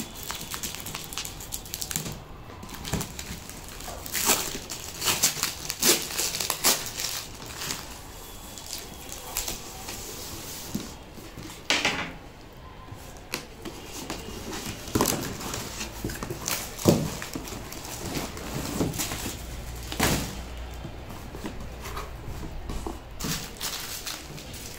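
Brown packing tape and cardboard being torn and peeled off a shipping box by hand, with irregular crinkling, crackling and ripping. A few sharper knocks stand out.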